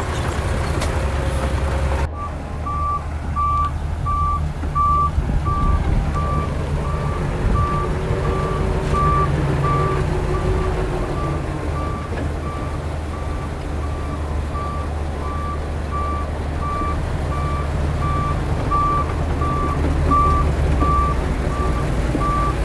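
Reverse alarm on heavy earthmoving machinery beeping steadily, about one and a half to two single-pitched beeps a second, over the low running of a diesel engine. The beeping starts about two seconds in.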